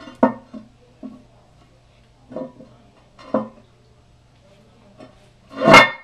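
A few irregular knocks and clinks, each with a brief ringing, over a steady low hum; the loudest clunk comes near the end.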